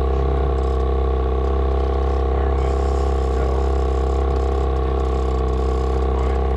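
Boat's outboard motor running steadily at trolling speed, a constant even drone that does not change.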